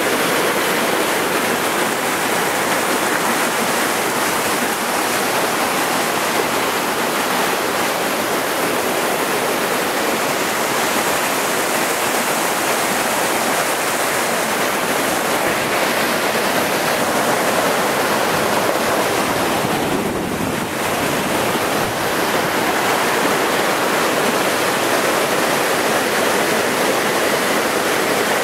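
Mountain stream rushing over rocks and down a small cascade: a steady, even hiss of white water, dipping briefly about two-thirds of the way through.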